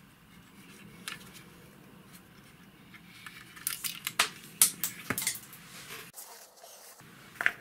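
Sharp metallic clicks and clatter of a small sheet-metal electronics module being handled and pulled apart by hand, a quick cluster in the middle and one more click near the end.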